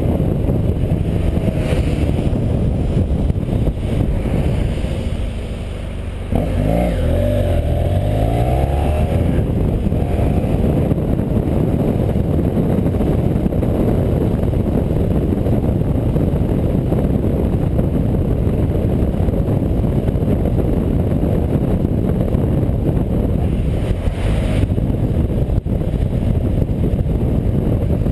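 Motorcycle riding, with its engine running under a steady rush of wind on the on-board microphone. About six seconds in, the engine comes back on with a rising pitch as the bike accelerates for a few seconds.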